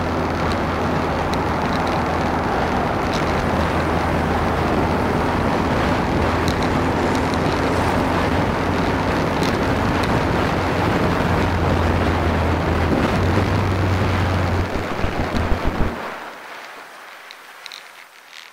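Motorcycle engine running steadily under wind noise on the microphone, then cutting off about sixteen seconds in, leaving faint clicks.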